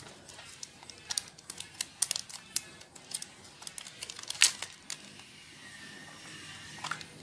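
Irregular run of sharp plastic clicks and taps as the clear hard-plastic case of Apple EarPods is handled and prised open, the loudest click about four and a half seconds in; the last two seconds are quieter.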